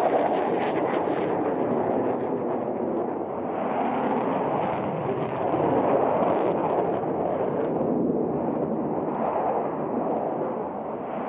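Jet fighter engine noise: a steady, loud rushing rumble with some sharp crackles in the first second.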